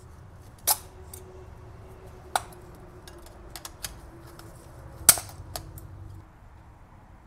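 Sharp snapping clicks as the spring clips holding the distributor cap on a BMW M10 four-cylinder engine are pried loose with a screwdriver. Three loud snaps, about a second in, about two and a half seconds in, and the loudest about five seconds in, with lighter ticks of plastic and metal between them.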